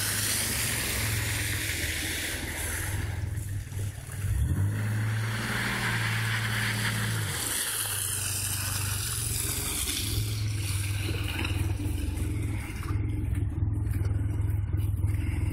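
Mazda 929 engine revving as the car slides sideways on snow. About four seconds in, its pitch climbs and holds for a few seconds, then drops back to a steady run.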